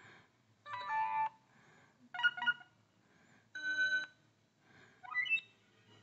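BlackBerry Curve 8530 phone speaker playing previews of its built-in notifier tones as the list is scrolled: four short, different chimes, each about half a second long, one after another at roughly one-and-a-half-second intervals.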